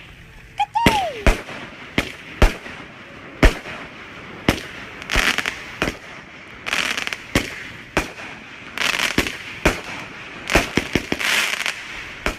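Fireworks going off: a rapid, irregular run of sharp bangs, more than a dozen, with sparkling crackle between them. There is a brief falling whistle about a second in.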